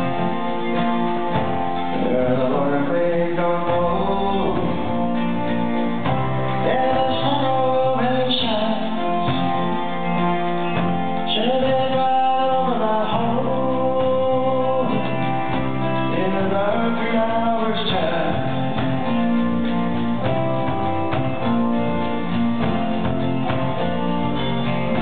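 Live folk-country song: a man singing over strummed acoustic guitar, with electric guitar, electric bass, drums and keyboard.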